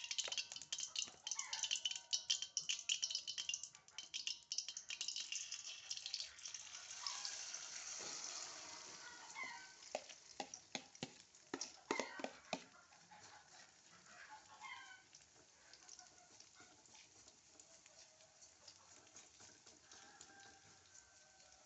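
Food sizzling in hot oil in a frying pan for the first several seconds, then a run of sharp clicks and taps of a utensil against the pan. Faint bird chirps can be heard here and there.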